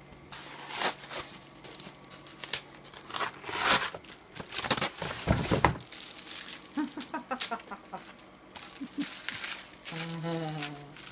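Packing material being pulled off and crumpled by hand, with crinkling rustles and several sharp tearing sounds.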